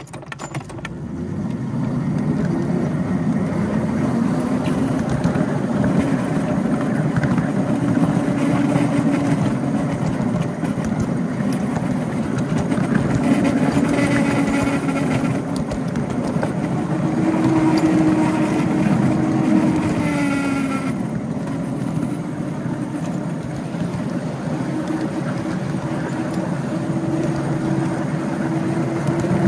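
Miniature ride-on locomotive running along the track, heard from on board: a steady drive hum that drifts up and down in pitch over the wheel and rail noise. Around the middle it twice gives a brief higher whine.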